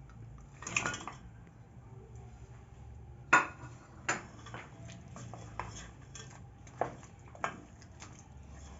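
A cooking spoon clinking and knocking against a sufuria (cooking pot) as chicken is added to the tomato and capsicum sauce and stirred: a handful of separate sharp clinks, the loudest about three and a half seconds in.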